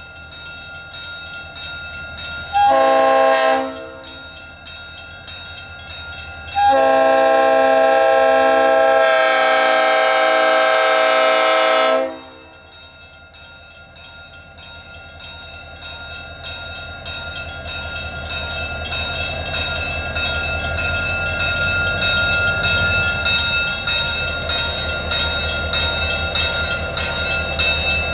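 SD40-3 diesel locomotive sounding its air horn for a grade crossing: a short blast about three seconds in, then a long blast held about five seconds, the end of the long-long-short-long crossing signal. After the horn stops, the locomotive's engine rumble grows louder as it draws near.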